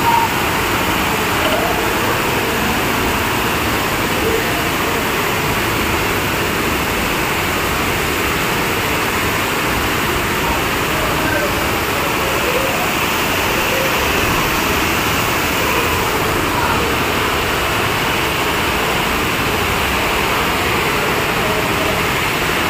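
Floodwater rushing steadily through a street, a continuous even rush of water with no breaks.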